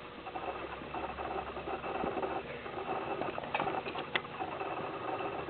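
Rustling and handling noise as switchblade knives are picked up and set down, with a few small sharp clicks about two-thirds of the way through.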